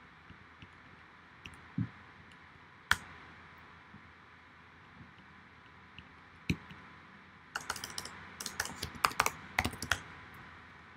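Typing on a computer keyboard: a few scattered keystrokes, then a quick run of keys about three-quarters of the way in as a terminal command is typed.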